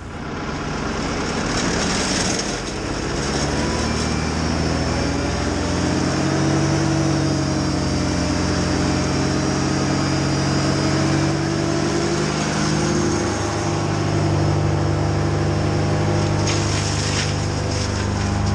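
A vehicle engine running steadily, its pitch drifting slowly up and down as the revs change.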